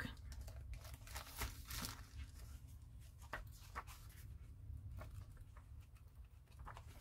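Faint rustling and a few light clicks as a Moleskine journal is handled and opened, its cover and paper pages turned by hand.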